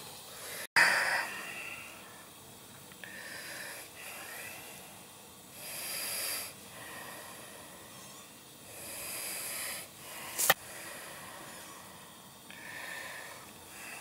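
A person breathing close to the microphone: several long, noisy breaths a few seconds apart over a faint steady hiss. A single sharp click comes about ten seconds in.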